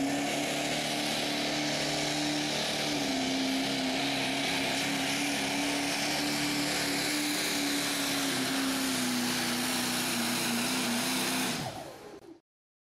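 4wd diesel pickup engine at full throttle pulling a weight-transfer sled, held at high, nearly steady revs with a couple of small dips, over heavy exhaust noise. It drops away about 11.5 s in and cuts off.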